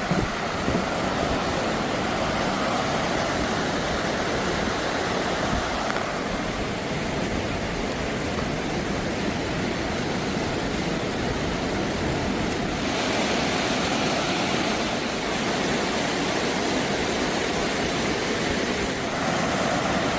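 Steady rushing of a flood-swollen river, a continuous loud wash of water that shifts in tone a few times.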